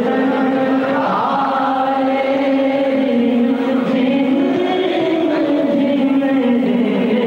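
A young male naat reciter singing a naat through a PA sound system, in long held notes that glide slowly up and down, with no beat.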